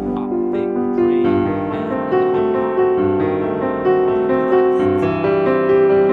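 Background instrumental music with a slow piano melody over held notes.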